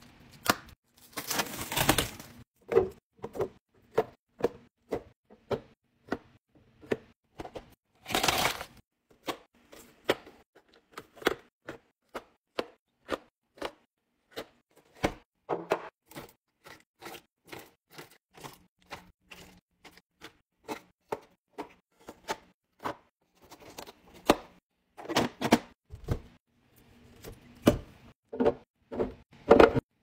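Plastic shrink-wrap on a pack of juice boxes being slit with a knife and torn away, with crinkling twice near the start. Around it comes a run of sharp clicks and taps as cardboard juice boxes, foil drink pouches and plastic bottles are set down in clear plastic organizer bins.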